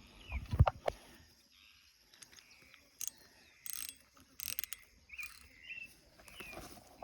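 Fishing reel worked after a cast, giving short ratcheting, clicking bursts, with a few knocks of handling in the first second. Small birds chirp now and then.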